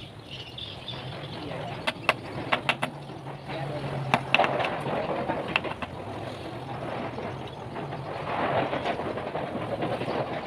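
A sickle blade cut from a motorcycle brake disc, with its wooden handle being knocked and pressed onto the tang. There is a cluster of sharp taps about two seconds in and a few more around four to six seconds, over a steady rumbling background that swells near the end.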